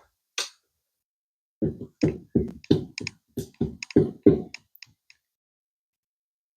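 A brief click, then a quick series of about ten sharp knocks, roughly three a second, lasting about three seconds.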